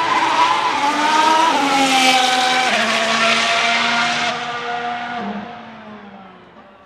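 Ferrari F1-75 Formula 1 car's 1.6-litre turbocharged V6 accelerating hard, its pitch dropping in quick upshifts about one and a half and nearly three seconds in. The sound stays loud for about four seconds, then fades away as the car pulls off.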